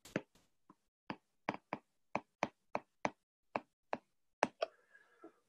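Plastic-tipped stylus tapping and clicking on a tablet's glass screen during handwriting: about a dozen light, sharp taps at uneven intervals.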